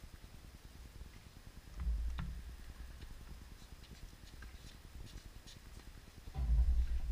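Faint, scattered taps of tennis balls being hit on the neighbouring courts, with two short low rumbles, one about two seconds in and one near the end.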